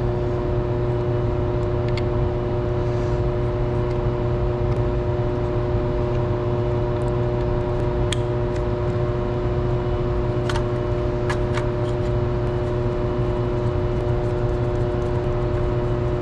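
Steady machinery drone with a low hum and several constant pitched tones, unchanging throughout. A few small clicks of metal parts being handled stand out over it, around the middle.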